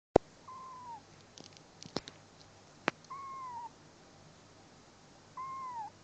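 A kitten mewing three times, each a short even cry that drops in pitch at its end. Sharp clicks fall between the cries, the loudest one right at the start.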